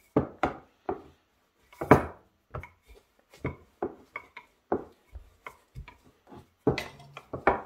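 Wooden rolling pin rolling back and forth over a ball of brioche dough on a floured worktop: a run of irregular short knocks and rubbing scrapes as the pin is pushed, lifted and set down, the loudest about two seconds in and near the end.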